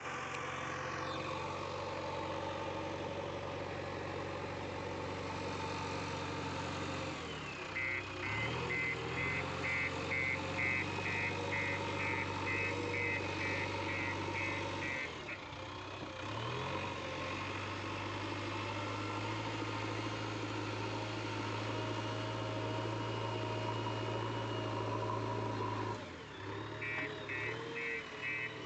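JCB backhoe loader's diesel engine running steadily and revving up three times. Its reversing alarm beeps rapidly, about two to three beeps a second, for several seconds in the middle and again near the end.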